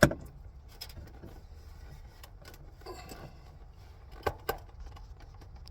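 Phillips screwdriver clicking and scraping against the plastic overhead map-light console of a truck while hunting for a hard-to-reach screw: a sharp click at the start, scattered light ticks, and two quick clicks about four seconds in.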